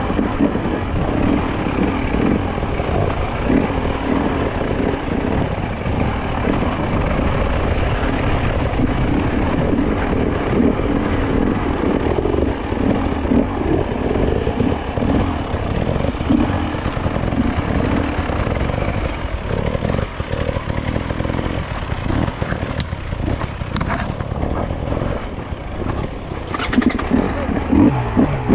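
Two-stroke enduro motorcycle engine being ridden hard over a rough forest trail, the throttle constantly opening and closing so the revs rise and fall, heard from on the bike.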